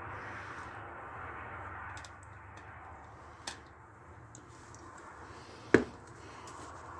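Hand-work noises on a lawn mower's front axle: a soft rubbing at first, a light click about three and a half seconds in, and one sharp knock near six seconds, the loudest sound.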